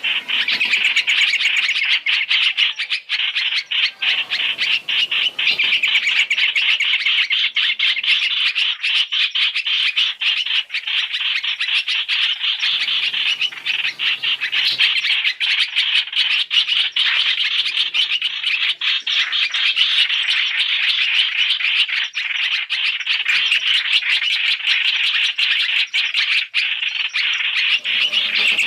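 Streak-eared bulbuls (hoành hoạch, trao trảo) calling in a dense, continuous chatter of rapid, high notes, from a trapping lure recording that mixes several of their calls.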